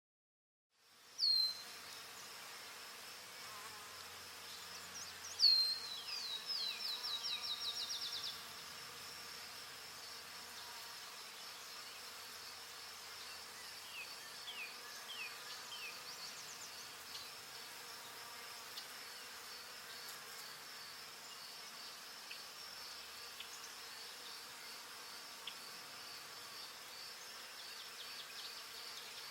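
Forest ambience: a steady high insect drone with birds calling over it. A sharp falling call about a second in, another around five seconds, then a quick run of falling notes to about eight seconds, and scattered faint chirps later.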